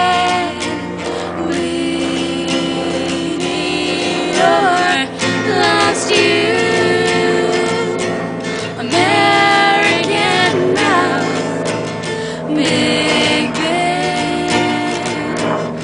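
Music: singing with several long held notes over an instrumental accompaniment.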